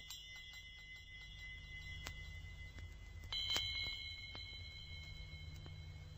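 Faint, high chimes ringing with light tinkling strikes, more tones joining about three seconds in, over a low steady hum: a scene-transition effect in a radio drama, leading into music.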